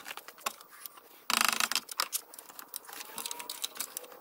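Hand tools being handled on a small engine: scattered clicks and light knocks, with a short burst of rapid clicking about a second and a half in.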